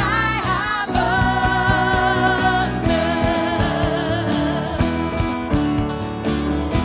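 Church worship band playing a rock arrangement of a Danish Easter hymn: women's voices sing a phrase and hold one long note, then acoustic guitar, keyboard and a steady beat carry on with the singing.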